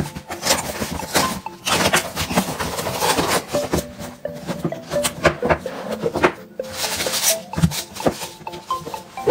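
A utility knife slicing through packing tape on a cardboard parcel and a phone box, then cardboard and styrofoam packing rustling and scraping as the box is unpacked, in many quick sharp strokes, over faint background music.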